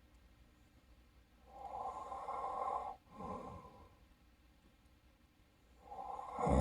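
A sleeping person's heavy snoring breaths: a long, noisy in-breath about halfway through and a short out-breath right after it, then another breath building near the end into a loud, rattling snore.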